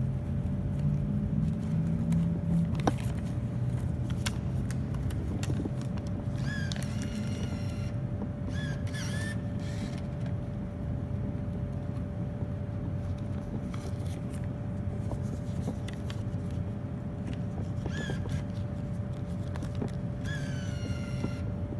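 Refrigerated drink vending machine humming steadily with a constant tone. Several times its bill acceptor gives short whirring squeals as it draws in a dollar bill: about a third of the way in and again near the end.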